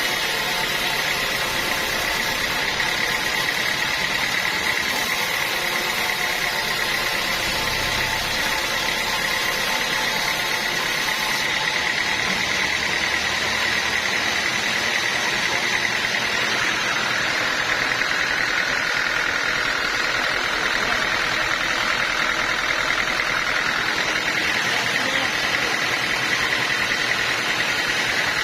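Sawmill saw running with a steady high whine. Past the middle the tone sinks for several seconds, then rises back.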